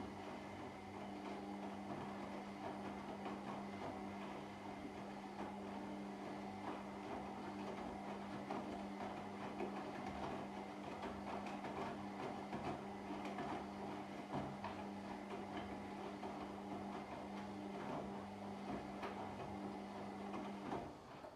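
Washing machine running a wash cycle: a steady motor hum with water and laundry churning in the drum, cutting off suddenly near the end.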